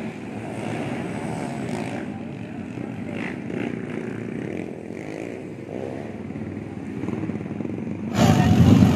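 Dirt bike engines running and revving as motocross bikes ride the track. The sound becomes much louder just before the end.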